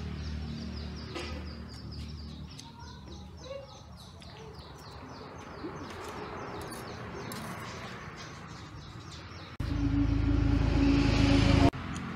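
A small bird chirps over and over in quick succession, with occasional light clinks of a spoon and fork on a metal plate. Near the end a loud low rumbling noise with a steady hum starts suddenly, lasts about two seconds and stops abruptly.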